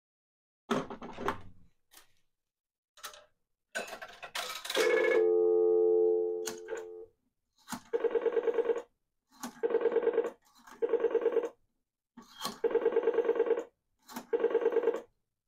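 Western Electric 1C1 single-slot payphone: knocks and clicks of handling, then a steady dial tone for about two seconds, showing the line is live. Then the rotary dial pulses out five digits, each a rapid train of about ten clicks a second with a faint ringing under it.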